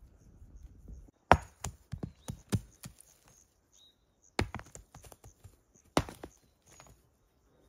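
Loose stones knocking together as they are picked up and dropped onto others. A quick run of sharp clacks comes about a second in, then single knocks near the middle and about six seconds in, with faint bird chirps between.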